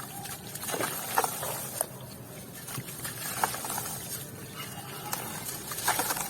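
Very crunchy crinkling and crackling of wet white cement with grains, irregular sharper cracks among softer watery crunching.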